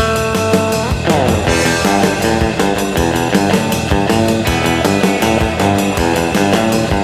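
Skywing Stratocaster-copy electric guitar played with a clean, twangy surf-rock tone over a rock backing track of drums and bass. About a second in, a run of notes slides down in pitch, followed by a cymbal crash.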